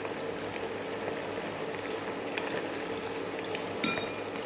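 Chicken pakoda pieces deep-frying in hot oil: a steady bubbling sizzle with faint crackles, and one brief sharp click near the end.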